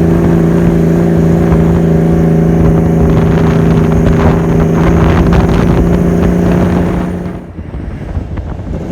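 Kenworth T800 truck's diesel engine running with a loud, steady drone. About seven seconds in, the drone drops away, leaving a quieter, rougher rumble.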